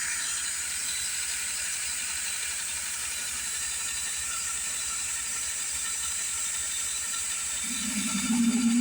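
Cheap cordless drill motor driving a DIY micro metal lathe's spindle, running steadily with a hissing whir. Near the end a louder low buzz comes in for about a second and a half.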